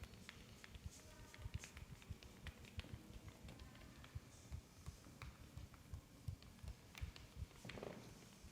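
Irregular soft pats and taps of a hands-on massage, several a second, mixed with sharper clicks.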